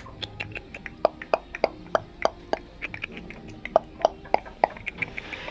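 A steady run of sharp clicks or taps, about three to four a second, each with a short ringing tone.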